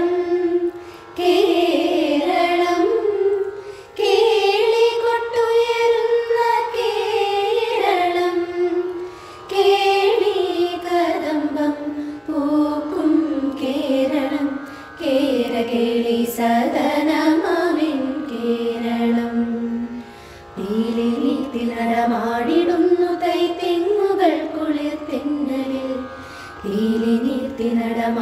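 A group of women singing a song together in unison. The song runs in phrases with short breaks between them and some long held notes.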